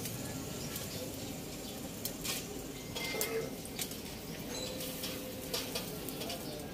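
Lamb pieces sizzling on a charcoal grill, with a few sharp metal clicks as tongs lift the meat off the wire grate.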